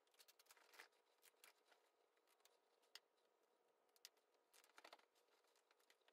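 Near silence, with a few faint clicks and rustles of hands working under a pile of towels.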